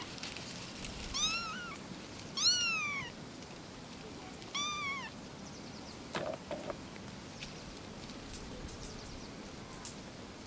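Very young kittens mewing: three thin, high mews in the first five seconds, each rising then falling in pitch, then a brief lower sound about six seconds in.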